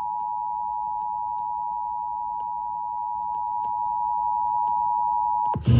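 Emergency Alert System two-tone attention signal, the 853 Hz and 960 Hz tones sounding together as one steady harsh tone. It cuts off shortly before the end and is followed at once by a sudden loud rush of noise.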